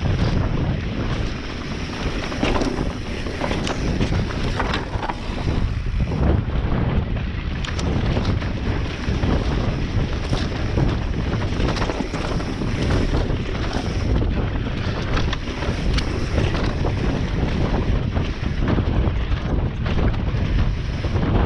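Electric enduro mountain bike descending a rough trail: wind rushing over the onboard microphone with frequent knocks and rattles from the bike and its tyres.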